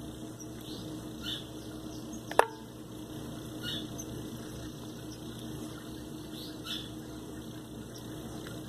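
Fingers firming potting soil around a succulent in a small plastic pot: faint handling and crumbling noises with a few short high squeaks, over a steady low hum. One sharp click about two and a half seconds in.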